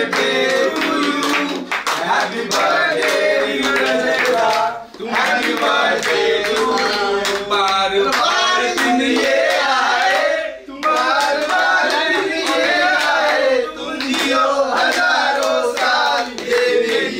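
A group of men singing together while clapping their hands in rhythm, with brief breaks in the singing about five and ten seconds in.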